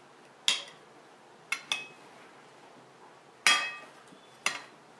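Steel knife clinking against a ceramic plate while chopping tomato pulp: five sharp clinks, each with a short ring, two of them close together, the loudest about three and a half seconds in.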